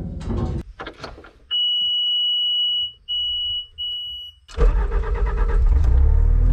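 Bobcat skid steer's warning beeper sounding as the ignition is switched on: one long high beep, then two shorter ones. About four and a half seconds in, the diesel engine cranks, catches and runs steadily.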